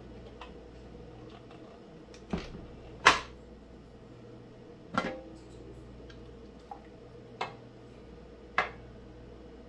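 Aluminium pressure canner lid knocking and clanking against the pot as it is turned free and lifted off: about six sharp metallic knocks, the loudest about three seconds in, over a steady low hum.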